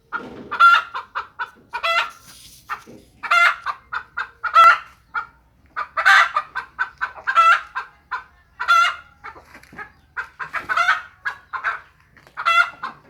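Kampung chickens clucking, a run of short pitched calls repeating quickly and unevenly, with a few louder calls among them.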